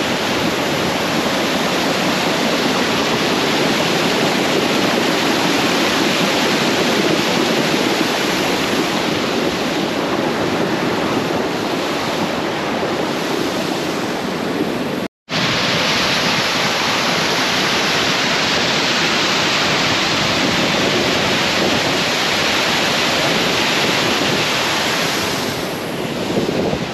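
Steady rush of a waterfall, a loud even noise of falling water, broken once by a split-second cut about halfway through.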